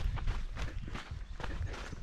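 Footsteps of a runner on a trail, a few steps a second, over a low steady rumble.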